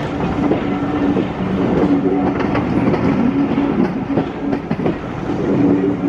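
Railway train running along the track, with wheels clicking over the rail joints and a steady low hum that comes and goes.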